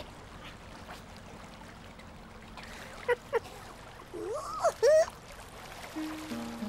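Gentle river water trickling, with a few short calls from a hen mallard from about three seconds in, the last two the loudest. Music begins near the end.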